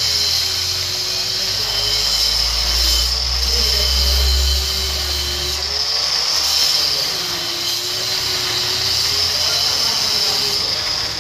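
Handheld electric power tool running continuously under load while cutting off part of a bracket, its motor pitch wavering up and down as it bites.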